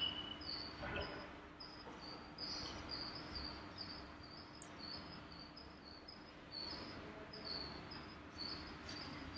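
Faint cricket chirping in a quick, even rhythm, over a steady low hum, with a faint knock about a second in.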